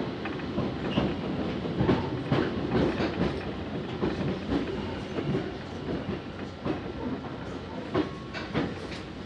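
Nankai Shiomibashi Line train running, heard from inside the car: a steady rumble with a clickety-clack of wheels knocking over rail joints, easing off a little in the second half.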